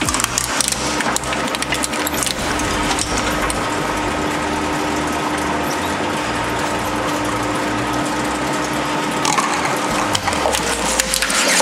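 Industrial shaft shredder running with a steady mechanical hum and low rumble, its steel cutter discs crunching a plastic action figure with sharp cracks in the first seconds. Near the end, plastic jars land on the cutters with a clatter.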